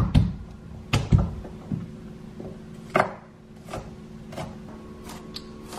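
Kitchen knife chopping garlic on a wooden cutting board: about ten sharp, irregular knocks, one or two a second.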